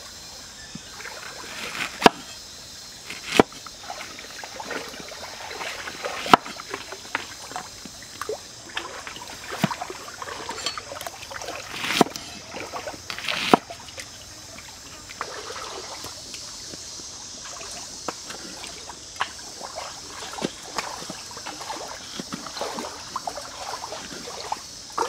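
Large knife chopping limes and chili peppers on a wooden cutting board: scattered sharp knocks of the blade on the wood, a few much louder than the rest, over a steady trickle of stream water.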